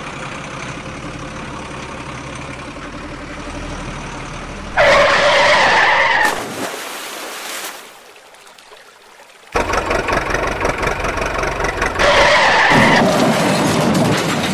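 Truck engine sound, running steadily for the first few seconds. It is then broken by loud, harsh stretches of noise about five seconds in and again near the end, with a short quieter gap in between.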